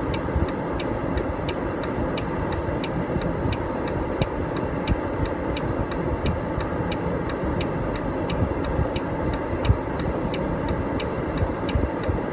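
Semi truck running on tire chains: the chains click in an even rhythm, about three ticks a second, over a steady low engine and road rumble.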